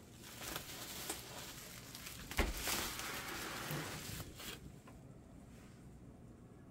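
Bubble wrap around a flat-pack package crinkling and rustling as a hand handles it, with one sharp knock about two and a half seconds in; the rustling stops about two-thirds of the way through.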